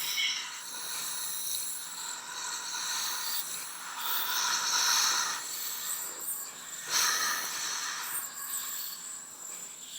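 Zombie sound effect: raspy, hissing breaths and snarls mixed with a rattling, mechanical sound like chains. It swells about four seconds in and rises sharply again at about seven seconds.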